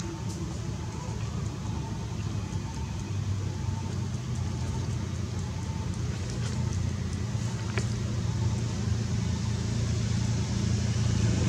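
Low, steady rumble of a motor vehicle engine, growing louder toward the end.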